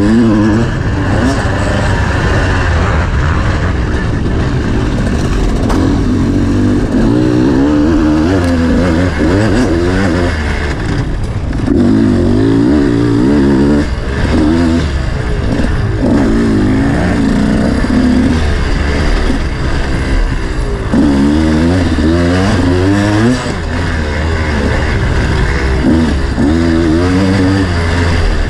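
Off-road dirt bike engine being ridden hard over a cross-country course, its pitch climbing and dropping over and over as the throttle is opened and shut, over a steady low rumble.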